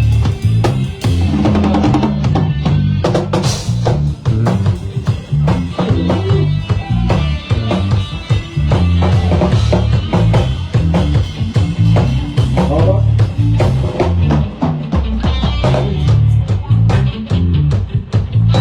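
Live band playing through a PA during a sound check: a drum kit with kick drum, snare and rimshots over a bass line.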